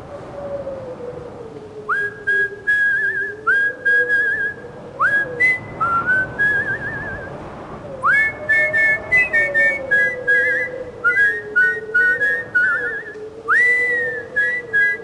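High whistled notes, each sliding up into a held or trilling pitch, in short phrases that begin about two seconds in, over a low tone that slowly wavers up and down.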